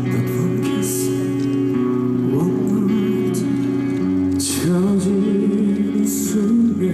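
Live pop music: a male voice singing over steady instrumental accompaniment, with held notes and some vibrato.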